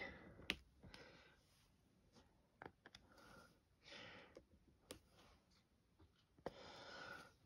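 Faint, scattered clicks of a diamond painting drill pen pressing resin drills onto the canvas, with soft breathing between.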